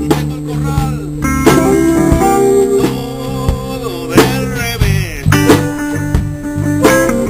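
Live electric blues band playing: electric guitar over bass and drums, with a harmonica wailing long bending notes.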